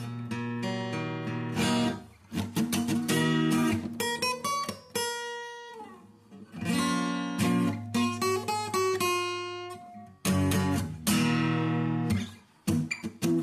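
Acoustic guitar being played: chords strummed and picked, some left to ring out and fade before the next strums.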